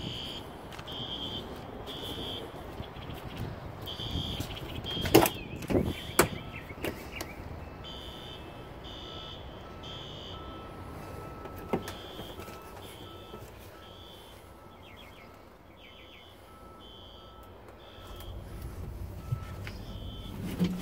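Knocks and clatter from a semi-truck's cab door and handholds as someone climbs up into the cab. Short high-pitched pips repeat on and off throughout.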